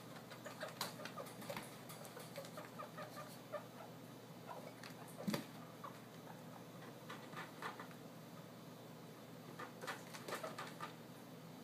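Guinea pigs squeaking in many short, repeated calls, excited at hearing vegetables being prepared, with light scurrying clicks and one sharp click about five seconds in.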